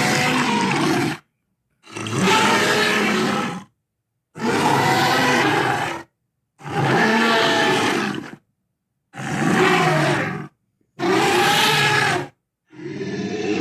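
Dinosaur sound effects for a Carcharodontosaurus: a string of separate roars and growls, each one and a half to two seconds long, with dead silence between them. A longer roar starts near the end.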